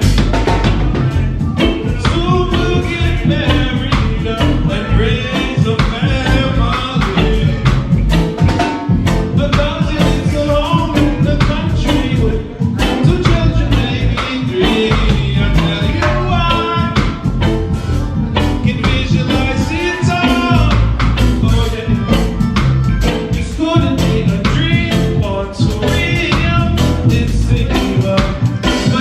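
Roots reggae band playing live, with heavy bass and drums and a steady beat.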